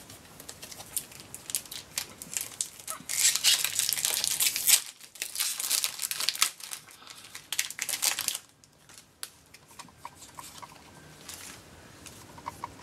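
Foil Pokémon booster pack wrapper crinkling and being torn open by hand, loudest about three to five seconds in, dying down about eight seconds in.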